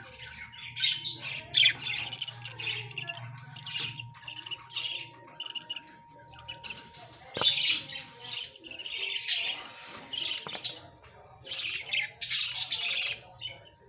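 A flock of parrots squawking and chirping, many short harsh calls overlapping in bursts, over a faint steady hum.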